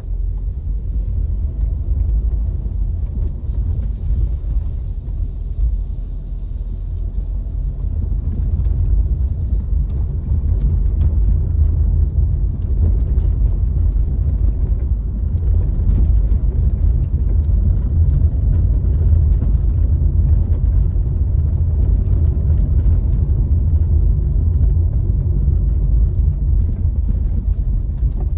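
A car being driven, heard as a steady low rumble of road and engine noise that grows a little louder after several seconds.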